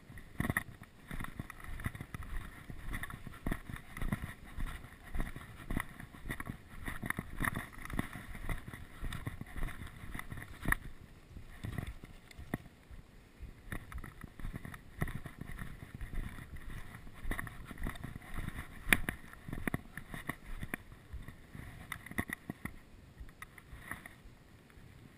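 Footsteps crunching on a gravel path, with wind buffeting the body-worn camera's microphone and irregular knocks and scuffs throughout.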